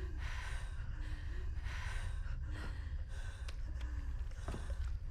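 A person breathing hard in ragged gasps, one breath after another, with a few faint whimpers over a steady low rumble.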